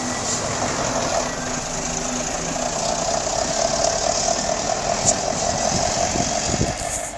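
A motor vehicle's engine running steadily under a loud, even rushing noise, fading near the end.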